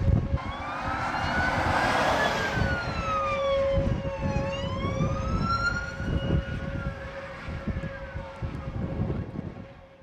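A siren wailing, its pitch sliding slowly up and down every few seconds over a steady lower siren tone, with wind rumbling on the microphone; it fades out near the end.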